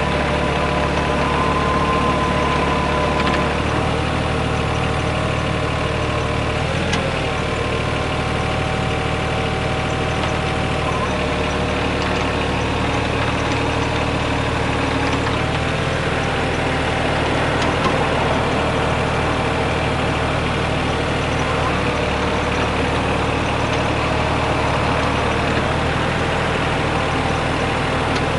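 Yanmar VIO20-1 mini excavator's diesel engine running steadily, with a whine of higher tones above it that shifts in pitch several times.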